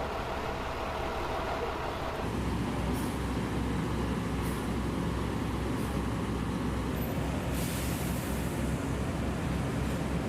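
Large truck engine idling with a steady low rumble that gets louder about two seconds in, and a short hiss of released air about seven and a half seconds in.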